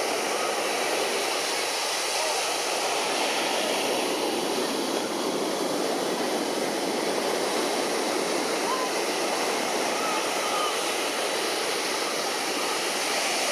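Steady outdoor background noise of a beach crowd's murmur mixed with surf, with a few faint, brief, high chirps now and then.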